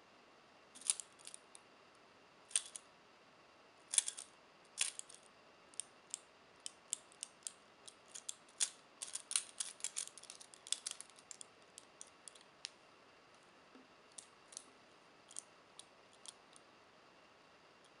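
Chain-linked steel police handcuffs clinking as the cuffed wrists twist and turn: a string of sharp metallic clicks from the chain links and cuffs, busiest in the middle and thinning out near the end.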